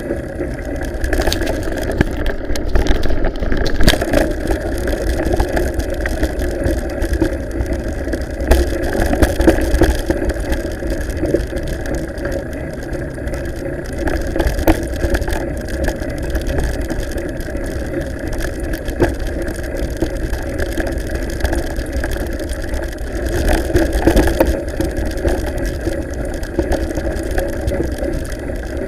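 Steady rumble of wind on the microphone and mountain-bike tyres rolling over a gravel track, with scattered short clicks and rattles from the bike.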